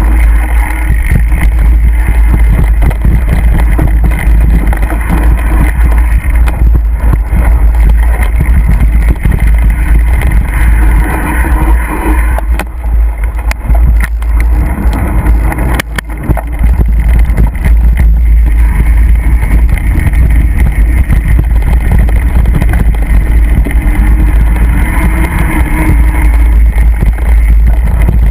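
Mountain bike ridden over rough, wet trail: a loud, steady rumble on the camera's microphone from wind and the bike's motion, with a few sharp knocks from the bike over bumps.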